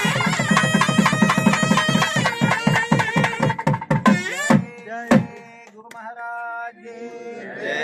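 Devotional music: a quick, even hand-drum beat under steady held tones, which stops about halfway through after two last strokes. A few held notes follow, and group chanting begins near the end.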